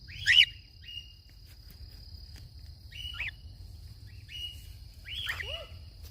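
Short chirping bird calls, about six over a few seconds, the loudest about a third of a second in and another strong one near the end, over a steady high insect drone and a low rumble of wind on the microphone.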